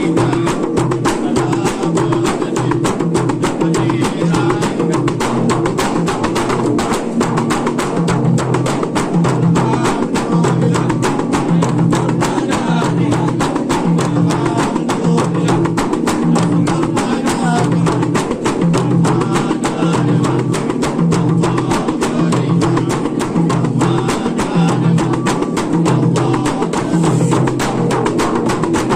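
Hadrah music: frame drums (rebana) beating a fast, dense, steady rhythm.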